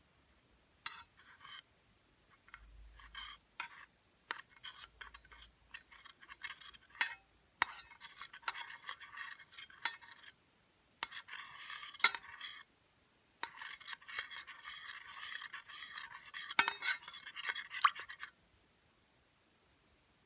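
Utensils clinking and scraping: scattered light clicks and taps, then longer stretches of scraping with sharp clinks among them. It stops about two seconds before the end.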